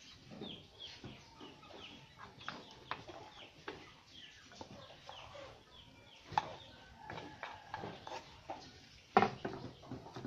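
Chickens clucking repeatedly in short falling calls, with two sharp knocks, about six and nine seconds in, from a clay mortar being tipped out and set down on a wooden table.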